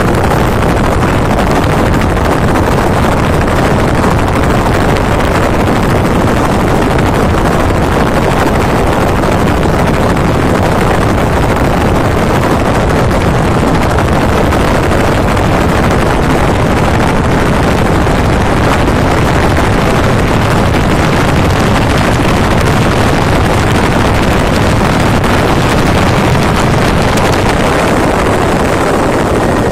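Helicopter engine and rotor noise heard from inside the passenger cabin in flight: a loud, steady roar with no change.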